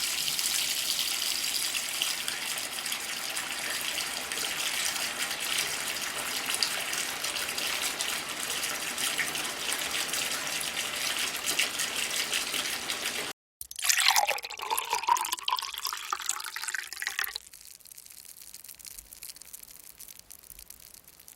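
Water running steadily from a tap for about thirteen seconds, then cut off abruptly. After a brief gap comes a different, louder sound lasting about four seconds whose pitch drops, followed by faint crackling.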